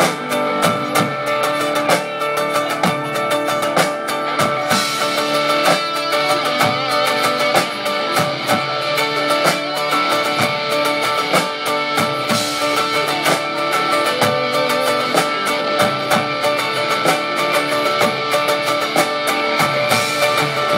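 Live rock band playing through a PA: strummed guitars, keyboards, horns and drums over a steady beat.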